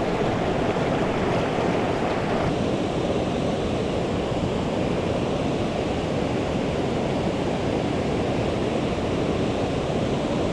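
Mountain stream water rushing, a steady, even noise; its hiss softens slightly about two and a half seconds in.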